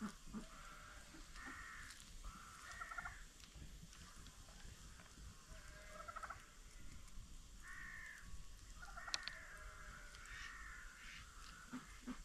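Domestic fowl calling off and on in short, faint calls, several with a falling tail. Now and then there are light clicks of pumpkin seeds and pulp being handled.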